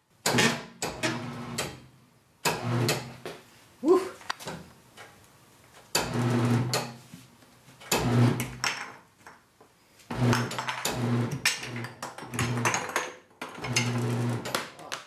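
Harbor Freight 67517 semi-automatic tire changer's electric turntable motor run in about six short bursts, humming each time it turns. Under it the stiff sidewall of a low-profile run-flat tire scrapes and squeaks against the rim and mount head as the bead is forced on, dragging dry because the bead lube has dried off, with one sharp rising squeak about four seconds in.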